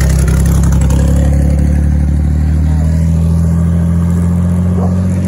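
Engine of an open-top jeep-style vehicle running loud and low, its note rising slightly in pitch as it pulls away down the road.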